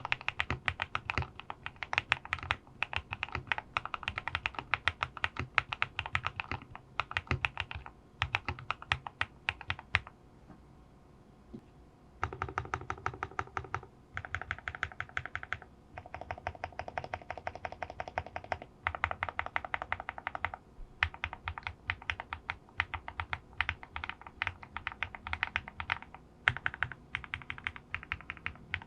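Typing on a QK65 mechanical keyboard with lubed linear switches (Oil King housings with NK Cream stems) on an aluminium plate: fast runs of key strokes, with a break of about two seconds roughly ten seconds in.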